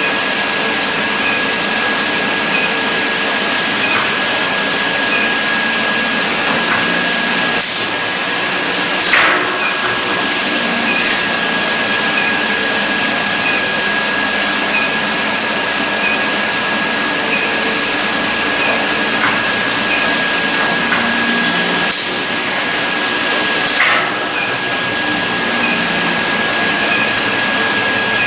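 Induction brazing machine running as a diamond segment is heated onto a saw blade core: a steady rushing machine noise with a steady high whine over it. Two pairs of sharp clicks cut through, one about a quarter of the way in and one about three quarters through.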